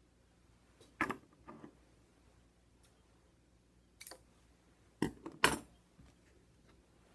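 A few short clicks and knocks from plastic drinking straws and a plastic bottle cap being handled, the loudest about five and a half seconds in.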